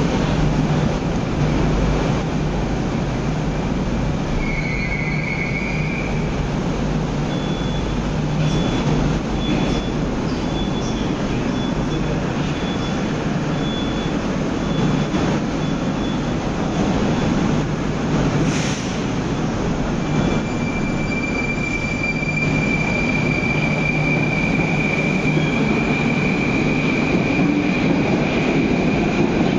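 Moscow metro train running: a steady loud rumble of wheels and rails, with a thin high whine about four seconds in and again from about twenty seconds on.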